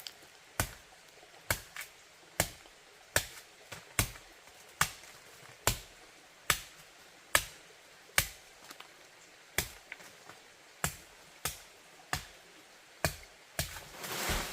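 Chopping with a blade on wood: sharp, evenly paced strokes about one a second, some with a light second click, and a rustling crunch near the end.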